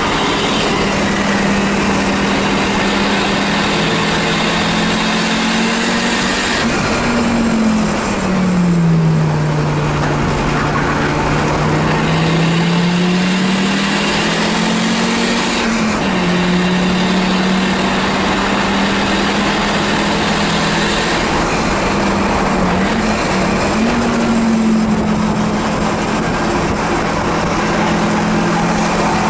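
1984 Audi 4000 race car's engine heard from inside the stripped, caged cabin, running steadily under power. About eight seconds in the revs drop and then climb back over several seconds, with another short dip and rise near the end.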